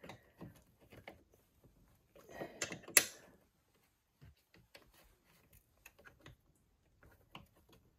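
Pliers and small metal parts clicking and rattling against a snowmobile's chain case, with rustling and one sharp metallic click about three seconds in, then a few light ticks.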